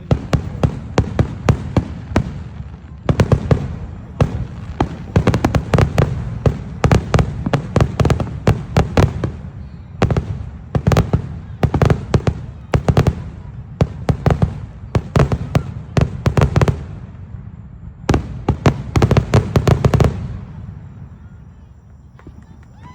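Fireworks display going off in rapid volleys of sharp bangs, several a second, dying away about twenty seconds in.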